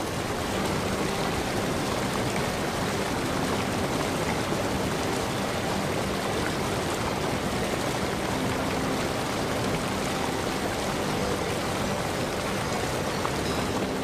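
Steady rush of water pouring over a stone cascade into a swimming pool.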